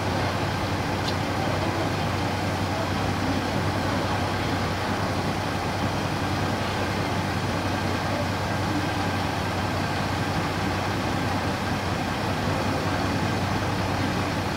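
Diesel railcar standing at the platform with its engine idling: a steady low hum.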